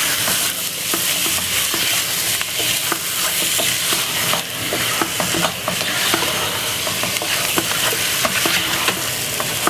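Chicken pieces sizzling as they fry in hot oil and spices in a large pot, with a steady hiss. A wooden spoon stirs them, knocking and scraping against the pot in many short ticks.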